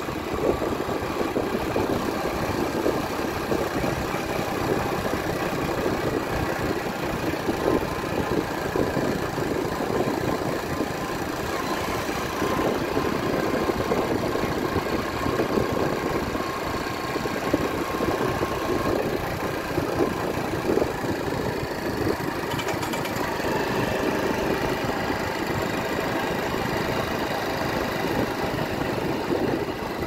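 Motorcycle engine running steadily while riding along a road, with wind and road noise.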